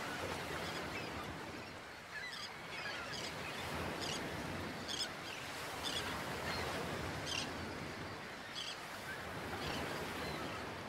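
Outdoor ambience of birds calling: short, high calls repeated irregularly over a steady background hiss, beginning to fade out near the end.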